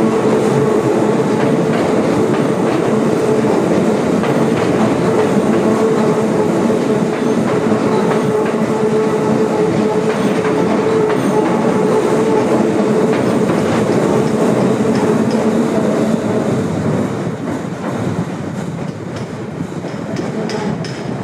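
Keikyu Line electric train running past, a loud steady rail noise with a held hum; it eases and quiets somewhat about four-fifths of the way through.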